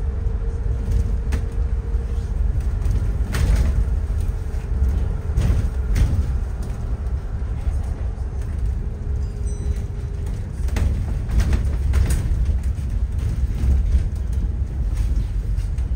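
A city bus running, heard from inside: a steady low rumble of engine and tyres with a faint whine, broken by a few short knocks and rattles.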